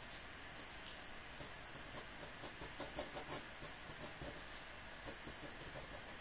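Pen tip scratching faintly on paper in short quick inking strokes, busiest about three seconds in.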